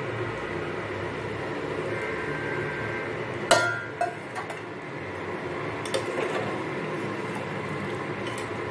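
Steel kitchenware handled around a cooking pot: one sharp metallic clink with a short ring about three and a half seconds in, followed by a few lighter clicks, over a steady low background hum.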